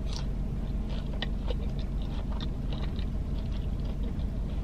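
Quiet chewing of fried food, with faint wet mouth clicks, over a steady low hum in the car cabin.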